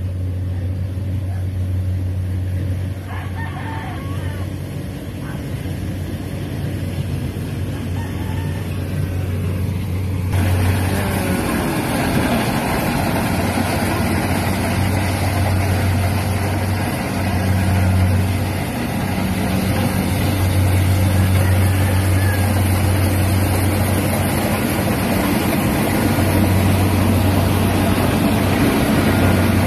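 Rice combine harvester running steadily as it cuts, with a low engine drone. It becomes louder and closer about ten seconds in.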